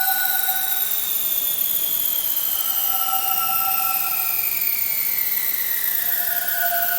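Science-fiction spaceship engine sound effect: a steady, loud hiss with several high whining tones that slowly fall in pitch. A two-note hum sounds for about a second and a half at a time, twice, a few seconds apart.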